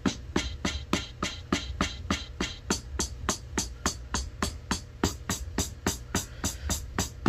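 Electronic beat music: evenly spaced percussive hits, about four or five a second, over a continuous low bass.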